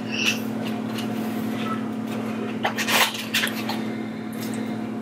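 Sounds of eating at a table: a few short clicks and rustles of takeout food containers and wrappers, the loudest about three seconds in, over a steady low hum.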